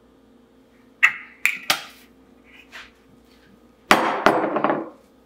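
Hard kitchen items knocking on a countertop: a glass bottle taps and clinks down three times about a second in, then a longer burst of clattering near the end as seasoning containers are picked up and handled.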